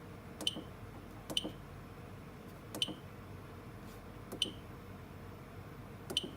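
Keypad of an addressable fire alarm control panel being pressed five times at uneven intervals, each press a click with a short high beep.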